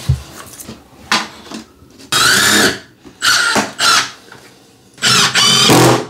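Cordless drill-driver running in four short bursts, each whine rising as the motor spins up, as screws are driven to fasten temporary scrap pieces down over the new vinyl plank floor. The last burst is the longest. A couple of knocks come in the first second or so.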